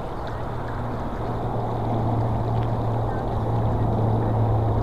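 Four-engine military jet transport's turbofan engines, a steady roar with a low hum, growing louder as the aircraft climbs out toward the listener.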